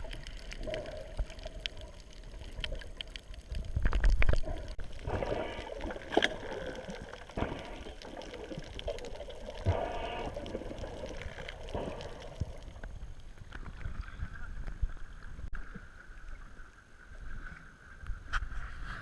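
Water sloshing and gurgling, with a dull knock about four seconds in and faint voices.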